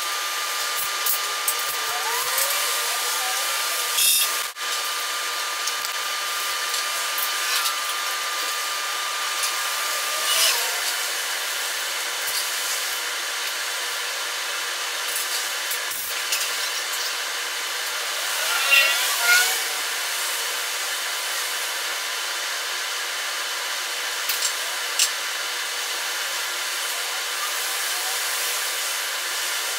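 Welding torch hissing steadily while a bead is run with filler rod, with a few short chirps and crackles over the hiss.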